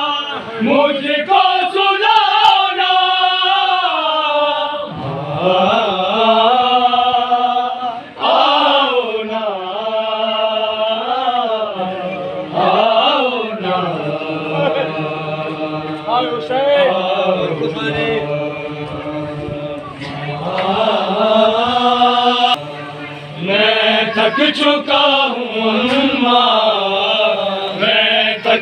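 Male chanting of a noha, a Shia mourning lament for Muharram, sung in long held notes that waver and bend in pitch.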